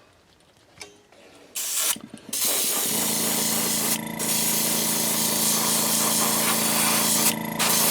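Airbrush spraying an opaque white base coat onto a crankbait lure: a steady hiss that starts about a second and a half in, with brief breaks where the trigger is let off about four seconds in and near the end. A steady hum runs underneath from about three seconds in.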